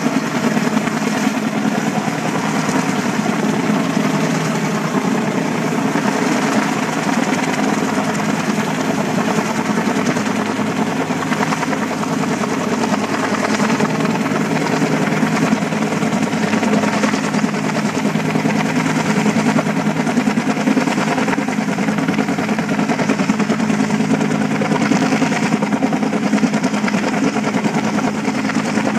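Helicopter flying low overhead, its rotor running steadily.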